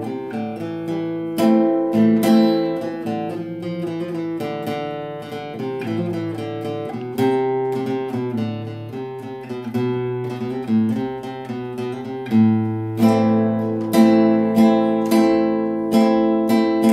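Solo nylon-string classical guitar playing an instrumental passage, plucked melody notes mixed with strummed chords. About three-quarters of the way through the strokes grow louder and fall into a steady rhythm of about two a second.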